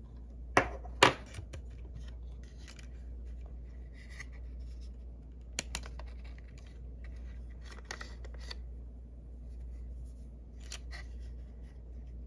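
Handling noise from a metal-bodied Panasonic RQ-S75 cassette Walkman and its gumstick rechargeable battery: two sharp clicks about half a second apart near the start, a lighter pair of clicks mid-way, and soft scraping and rubbing of fingers on the casing.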